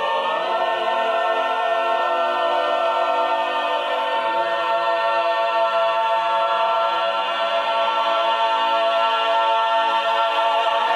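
Mixed chamber choir singing a cappella, holding a long sustained chord whose inner voices shift slowly, at a steady level. It is the closing chord of the piece, released at the very end.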